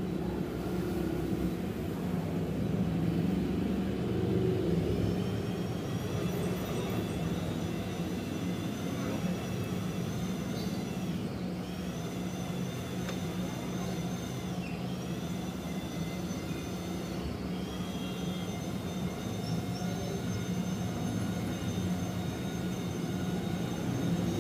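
A motor running steadily with a low hum, joined after a few seconds by a high whine that dips briefly in pitch and recovers about three times.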